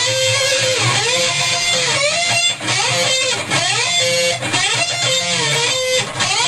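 Electric guitar playing a heavy metal riff, with repeated pitch slides down and back up about once a second.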